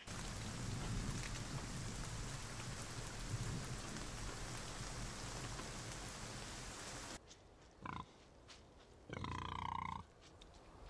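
Steady rain falling, which cuts off abruptly about seven seconds in. Then a pig calls twice: a short call, and about a second later a longer, louder one lasting about a second.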